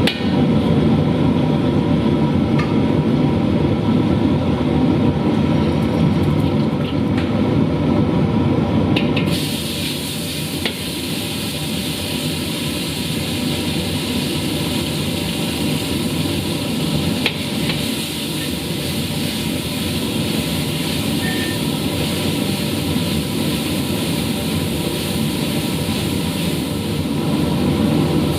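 Food frying in a pan with stirring, over a steady low rumble; the sizzling hiss turns brighter and fuller about nine seconds in.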